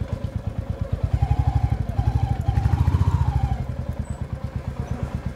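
Royal Enfield Classic 350's single-cylinder engine thumping at low speed. It gets louder for a couple of seconds in the middle, then eases back to an even idle thump as the bike comes to a stop.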